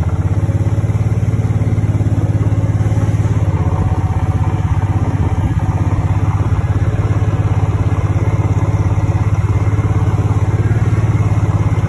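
Small engine of a farm vehicle running steadily at an even travelling speed, a rapid low putter that does not rise or fall.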